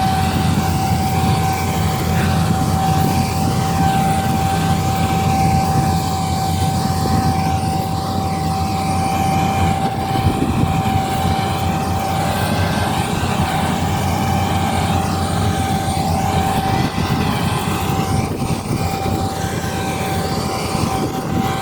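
Claas Lexion 8900 combine harvester working in wheat: a loud, steady low drone with a constant high whine over it and a whooshing sweep in the noise.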